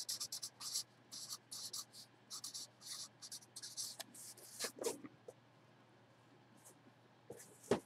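Black felt-tip marker writing a name on a white cardboard box: a quick run of short strokes, which stop about five seconds in.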